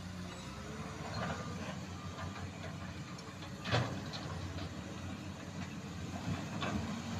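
Excavator diesel engines running steadily while the buckets dig rock, with several knocks and clatters of rock. The loudest knock comes a little past halfway.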